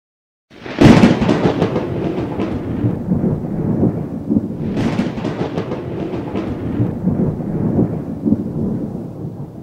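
Thunder: two sharp cracking claps about four seconds apart, each trailing into a long low rumble that slowly fades.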